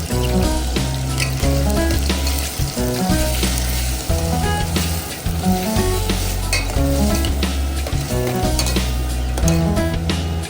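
Food sizzling as it fries in a pan, with stirring and short clicks of a utensil against the pan, over background music with a steady bass line.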